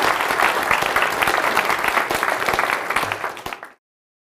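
Audience applauding in a lecture hall, a dense patter of many hands clapping that thins slightly and then cuts off suddenly near the end.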